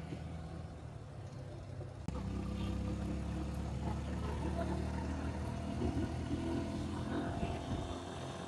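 Engine and road noise of a small goods pickup heard from its open cargo bed while driving in town traffic: a steady low running hum that gets louder about two seconds in as the vehicle picks up.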